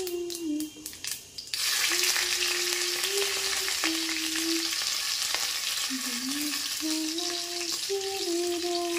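Green chillies dropped into hot oil in a kadhai: a sudden loud sizzle starts about a second and a half in and keeps on steadily.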